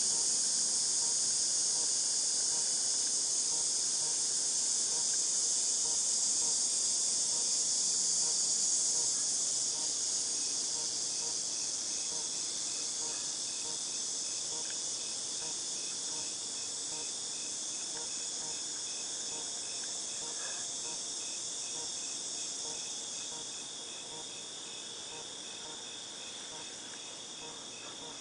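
Cicadas in chorus: a steady, high-pitched shrill buzz that slowly fades after about a third of the way in, with a fainter, evenly pulsed insect call underneath.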